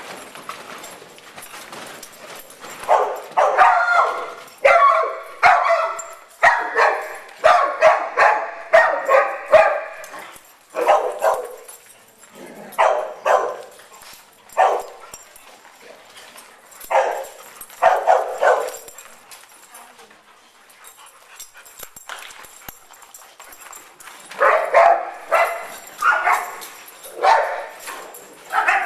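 Dog barking in play, in quick runs of short barks with pauses between: a long run starting about three seconds in, shorter runs in the middle, and another run near the end.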